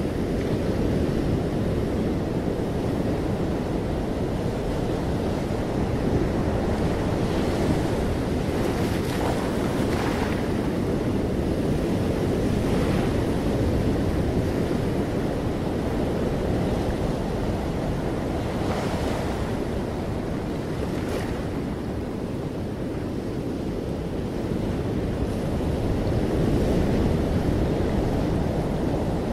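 Ocean surf breaking and washing up a sandy beach among rocks: a steady low rush, with brief hissing surges of foam every few seconds.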